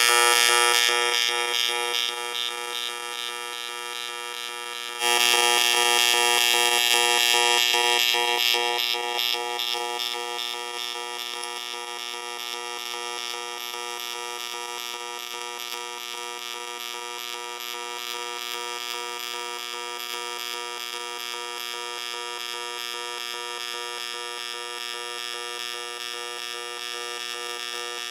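AC TIG welding arc on aluminium from a Miller Dynasty welder, buzzing steadily and pulsing at 2.5 pulses a second as the current swings between 120 A peak and 30 A. It jumps louder about five seconds in, then eases back to a steadier, quieter pulsing buzz.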